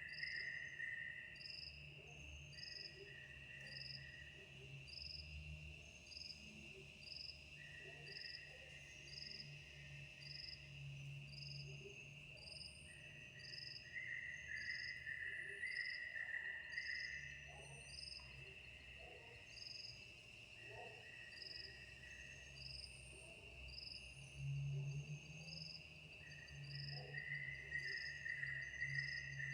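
A chorus of crickets and other insects: a steady high-pitched drone with short chirps repeating about once a second, and a lower trill that comes and goes.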